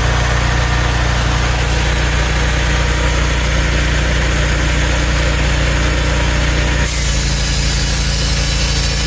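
Sawmill's engine running steadily. About seven seconds in its note shifts suddenly and some of the higher sound drops away.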